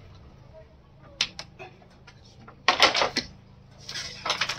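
A long knife cutting and scraping through pig hide on a bamboo platform: a few light clicks, then two harsh scraping strokes about a second apart.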